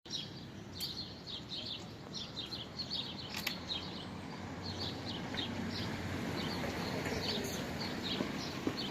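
Small birds chirping repeatedly over a steady background hiss, with two sharp clicks, about one second and three and a half seconds in.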